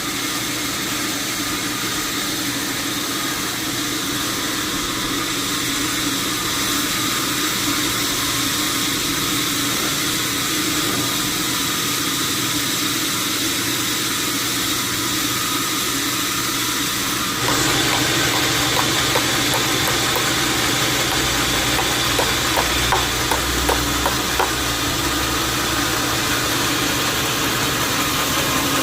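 Sawmill machinery running steadily, an engine-like drone with a constant hum. About seventeen seconds in it gets louder and fuller, with a few light knocks and a low rumble after that.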